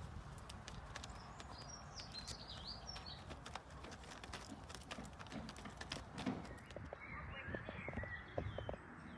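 Hens pecking at chopped greens in a plastic tray: many quick, faint, irregular taps and clicks of beaks striking the tray. A bird chirps faintly in the background about two seconds in.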